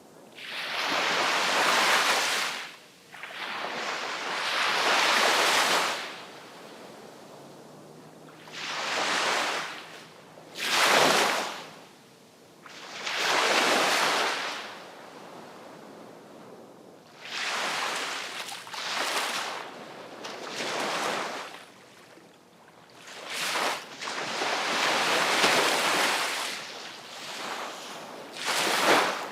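Sea waves breaking and washing in: a dozen or so surges of hiss, some long and some brief, every two to three seconds, with short quieter lulls between them.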